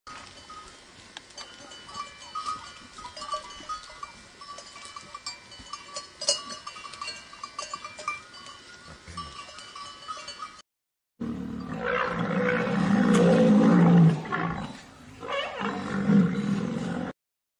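Faint outdoor background with thin high chirps. After a brief cut to silence comes a loud, deep, rough animal call lasting about six seconds, briefly dropping away in the middle.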